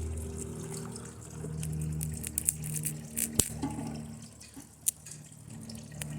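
Circuit board traces and components burning under high current from a lead-acid battery: a sizzling, crackling hiss with a low hum and several sharp pops.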